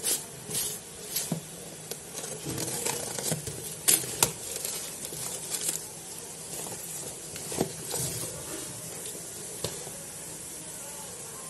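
Courier packaging being cut and torn open by hand: the mailer bag and cardboard box crinkle and rustle, with scattered sharp crackles and clicks that thin out over the last few seconds.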